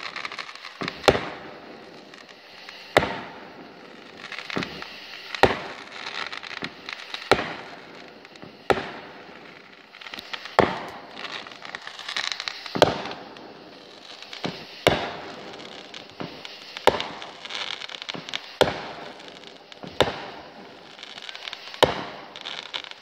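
Fireworks going off: about a dozen sharp bangs, roughly one every one and a half to two seconds, with crackling and hissing between them.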